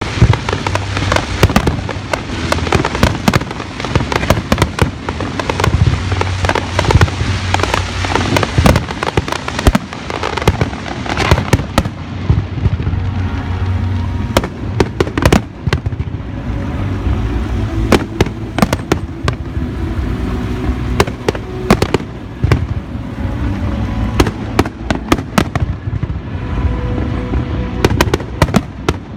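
Aerial fireworks display: a rapid, continuous barrage of sharp bangs and booms over a rolling rumble, densest for the first dozen seconds and then a little sparser.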